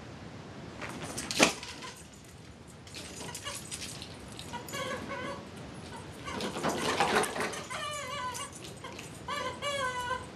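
Squeaky rubber rooster dog toy being bitten and squeezed by a corgi, giving a run of short, wavering squawks in the second half. A single sharp knock comes about a second and a half in.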